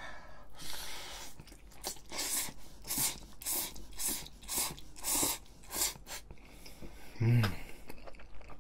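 Spaghetti noodles slurped into the mouth in a run of short, hissy sucks, about one every half second, then chewing with a brief low hum about seven seconds in.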